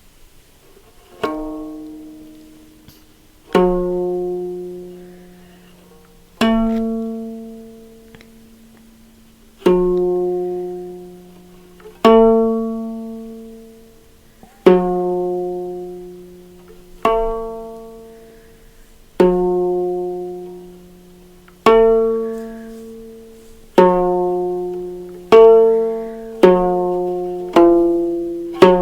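Single notes plucked one at a time on an Ethiopian string instrument, each ringing out and fading away. They come every two to three seconds and follow closer together near the end.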